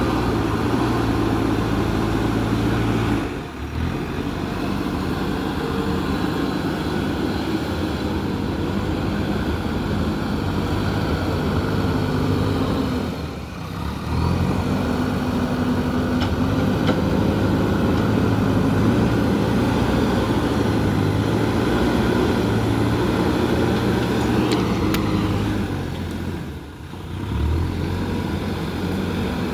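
JCB 3DX backhoe loader's diesel engine running steadily under work, its pitch shifting slightly as the operator works the machine, with three short dips in level.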